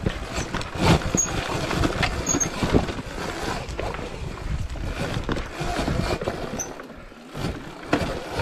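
Sur Ron electric dirt bike crawling over loose rocks: tyres and suspension knocking and clattering on the stones, with no engine note, about seven seconds in the clatter briefly drops away.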